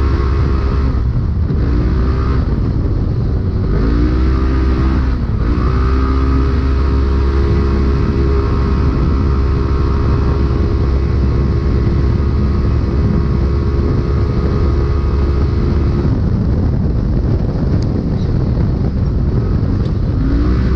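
Polaris RZR racing UTV engine running hard at high revs over a heavy low rumble, heard from inside the cab. Its revs dip and recover a few times in the first five seconds, hold steady for a long stretch, fall away for a few seconds near the end, then climb again.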